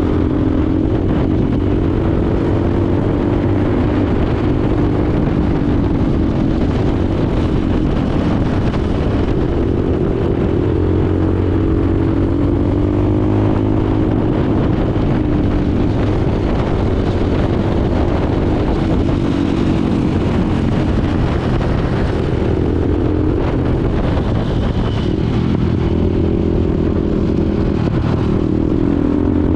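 Motorcycle engine running under way at cruising speed, its pitch rising and falling gently with the throttle.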